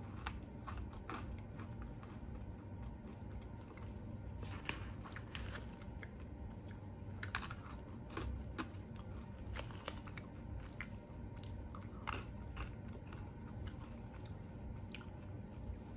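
A person crunching and chewing pretzels close up, with sharp, irregular crunches over a low steady hum.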